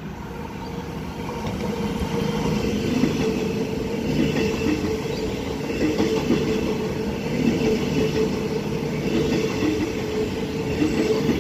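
Six-car electric passenger train running through the station at speed without stopping: steady rumble of wheels on the rails with a steady motor tone over it, growing louder over the first couple of seconds as it arrives alongside.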